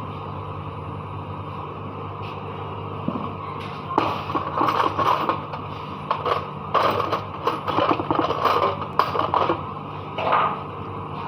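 A steady low hum runs throughout. From about four seconds in, rapid scraping and rattling comes in bursts for several seconds, with one more short burst near the end.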